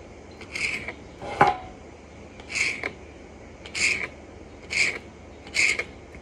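Kitchen knife slicing black sea cucumber on a cutting board: about six short scraping strokes, roughly one a second, with one sharper knock about a second and a half in.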